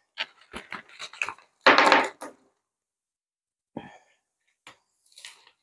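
Coins and banknotes being handled in a ring-binder budget wallet. Short clicks and clinks of coins, then one louder rustle of plastic pouch pages and paper about two seconds in, followed by a few faint clicks.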